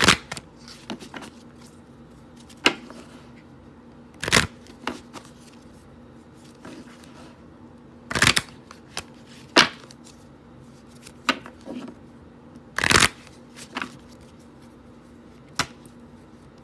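Tarot cards being shuffled and handled, with short sharp slaps and taps at irregular intervals, a few seconds apart.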